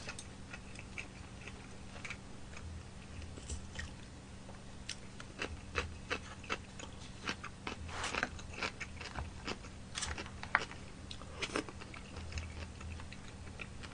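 Soft close-miked chewing and biting of food, with scattered light clicks of a plastic fork against plastic takeout trays.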